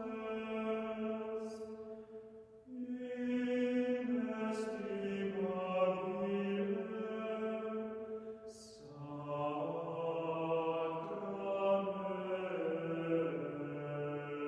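A chamber choir singing slow, sustained chant-like chords. The phrases break briefly about two and a half seconds in and again near nine seconds, before new held chords begin.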